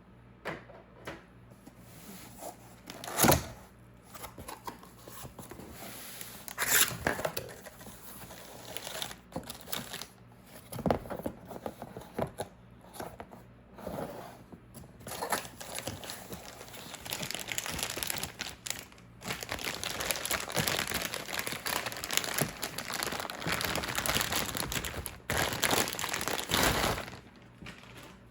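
Packaging being unwrapped and handled: irregular crinkling and rustling, with a sharp knock about three seconds in and near-continuous crinkling through the second half.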